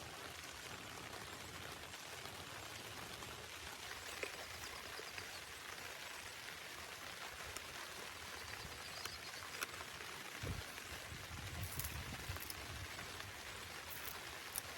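Steady rain falling, an even patter with a few faint drip ticks. A few soft low thuds come about ten seconds in.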